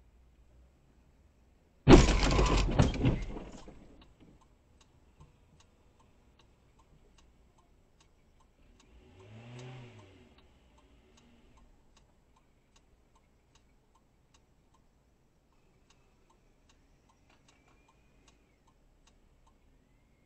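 Car-to-car collision about two seconds in: a sudden loud crunching impact with breaking and cracking that dies away over a second or so. After it, faint regular ticking, about two a second, and a brief low tone that rises and falls near the middle.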